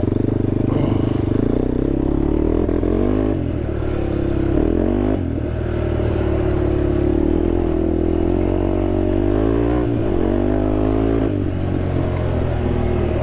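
Honda TRX sport quad's engine running under way off road, its note dipping and climbing again a couple of times as the throttle is worked.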